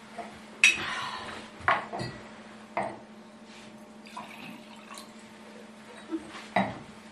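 Wine poured from a glass bottle into a wine glass, among several sharp knocks and clinks of bottle and glasses on a wooden table.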